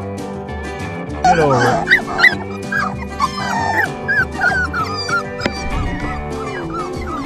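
Puppies whimpering and yipping in a string of short, high, rising-and-falling cries that start about a second in, over steady background music.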